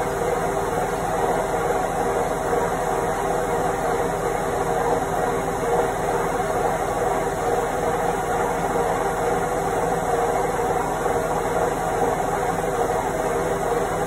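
Indesit front-loading washing machine on its spin cycle: a steady whirring of the spinning drum with a few held whining tones, the speed unchanging throughout.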